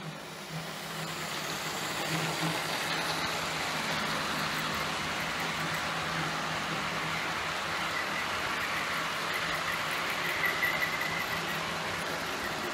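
Model container train running past on a model railway, a steady rolling rattle of wheels on track over a low steady hum from the locomotives. It fades in over the first couple of seconds, and a brief high squeal comes about ten seconds in.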